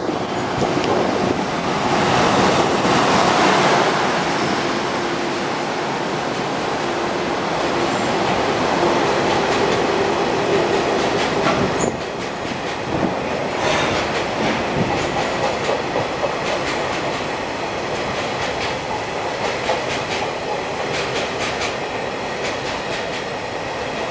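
EH200 electric freight locomotive running through, loudest a few seconds in, followed by a long string of tank wagons rolling past with a steady clatter of wheels over rail joints. A few brief high wheel squeals come and go.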